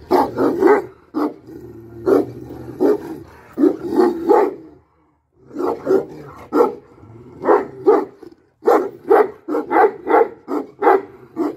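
Pakistani bully dog barking loudly and repeatedly, about twenty sharp barks in quick runs, with a short pause about five seconds in.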